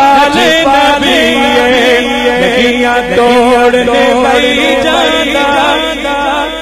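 A man chanting a Punjabi devotional naat into a handheld microphone over a loudspeaker system, in long wavering melismatic notes over a steady held tone, easing off near the end.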